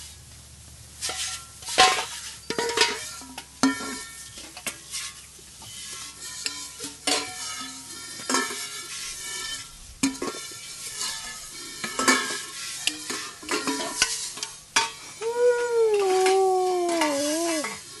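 Water from a hose spray nozzle hissing onto stainless steel dog bowls, the bowls clanking and knocking against each other as they are rinsed and turned over. About fifteen seconds in, a dog howls for a couple of seconds, one long call that wavers and falls in pitch.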